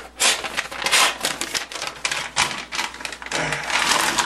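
An HP printer clattering while someone works a jammed sheet of paper through it: a rapid, irregular run of clicks and rattles.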